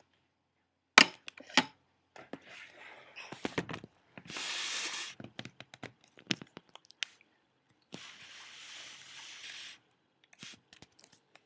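Handling and movement noise: two sharp knocks about a second in, then scattered clicks and rubbing, and two stretches of hiss about four and eight seconds in.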